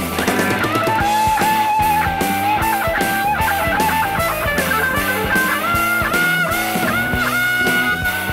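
Early-1970s hard rock band playing an instrumental passage: an electric guitar lead with held, bending notes over bass and a steady drum kit beat.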